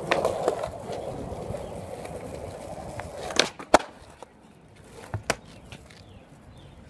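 Skateboard wheels rolling on concrete, then about three and a half seconds in two sharp clacks a third of a second apart, the tail popping and the board landing an ollie, and a lighter knock of the board a little later.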